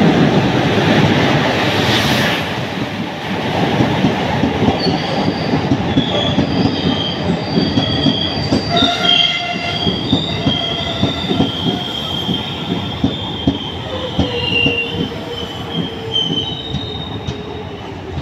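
A WAP-4 electric locomotive and its passenger coaches passing close by through a station without stopping: a heavy rumble, loudest in the first few seconds as the locomotive goes by, then rapid wheel clatter over the rail joints with high-pitched wheel squeal from about five seconds in.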